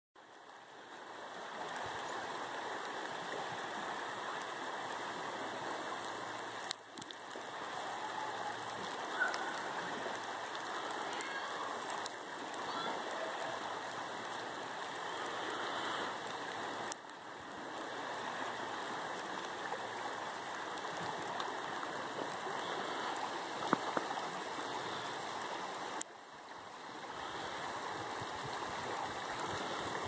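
Scioto River flowing: a steady, continuous rush of moving water that dips briefly in level three times.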